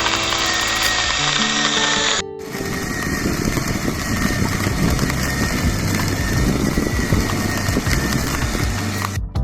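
Background music with a bass line over a steady hiss. About two seconds in, the hiss gives way to a rougher, fuller noise with faint crackles.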